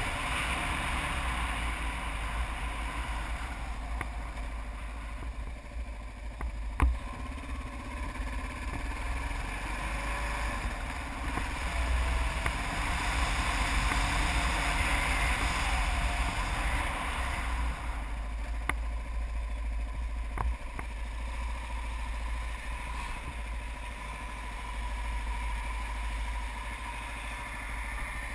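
Kawasaki KLR 650 single-cylinder dual-sport engine running under way, mixed with heavy wind rumble on the microphone. A sharp click about seven seconds in.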